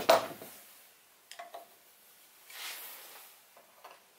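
Hand tools handled on a wooden workbench: a sharp clunk as a tool is set down, then a few light clicks and a brief soft rustle as a hex-key screwdriver is picked up.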